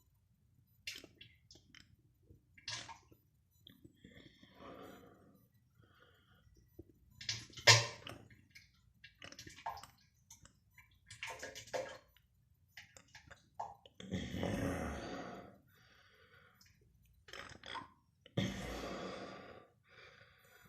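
Diarrhoea sound effect on a toilet: irregular wet sputters, splats and splashes into the bowl water. Two longer sputtering bursts come about two-thirds of the way through and near the end.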